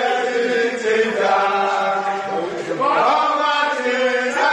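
A group of men singing a praise song together in unison, with long held notes and a rise in pitch about three seconds in.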